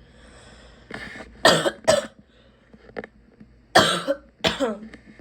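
A sick person's harsh, barking cough. A breath in, then two loud coughs, and about two seconds later two more.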